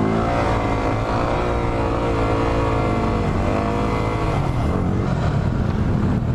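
Yamaha WR250R's single-cylinder engine running under way at fairly steady revs, with wind noise. The revs ease slightly about three seconds in and settle lower after about four and a half seconds.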